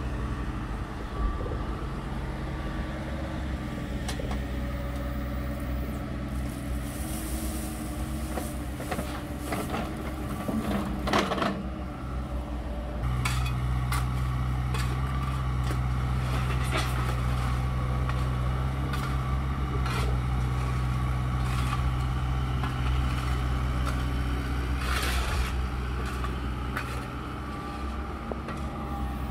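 Engine of heavy equipment running steadily, its note rising and getting louder about 13 seconds in, with scattered knocks and scrapes of material being worked.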